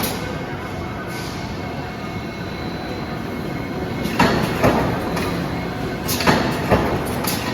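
Factory machinery running with a steady rumble, joined about halfway through by a run of sharp knocks and clanks that repeat several times until the end.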